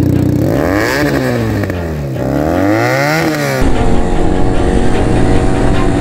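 Benelli TNT 300's parallel-twin engine through an Akrapovic slip-on exhaust, idling and then revved twice, the pitch rising and falling back each time. About three and a half seconds in it cuts abruptly to the bike running steadily under way.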